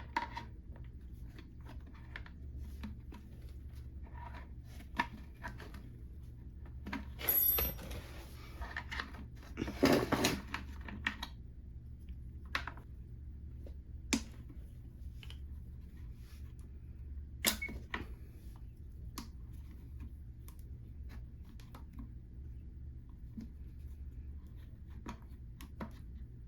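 Small clicks, taps and rubbing from hands and tools working stiff fuel lines off a string trimmer's carburetor, with louder scraping and handling bursts about seven and ten seconds in, over a steady low hum.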